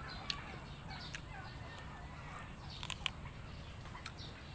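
Faint scattered clicks and smacks of chewing and handling a santol fruit, with faint calls of domestic fowl in the background.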